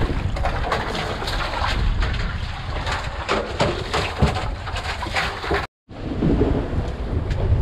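Wind rumbling and buffeting on the microphone over open sea on a small fishing boat, with many scattered sharp knocks and splashes. The sound drops out completely for an instant a little before six seconds in.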